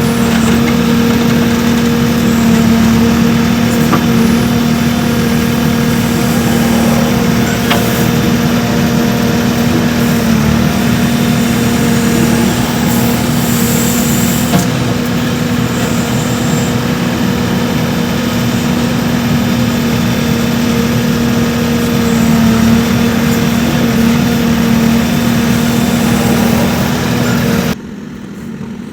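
JCB 3DX backhoe loader's diesel engine running at a steady, unchanging note. Near the end the engine sound drops off suddenly to a much quieter background.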